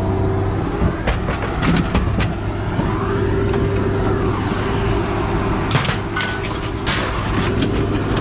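An engine running steadily, with several sharp metal clanks of scrap being handled, a few near the start and a cluster a little before the end.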